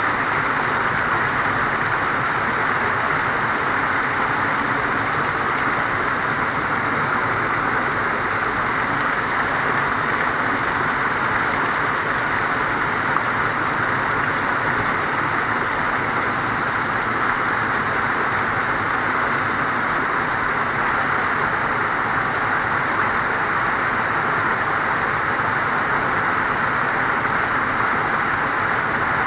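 Small waterfall pouring steadily onto rocks close by, a dense, even rush of falling water that does not change.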